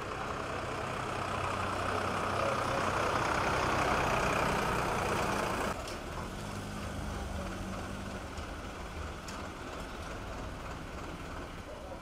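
A heavy vehicle's engine running close by, a steady hum under a rushing noise. The noise swells over the first few seconds and then drops off suddenly about six seconds in, leaving a lower steady engine hum.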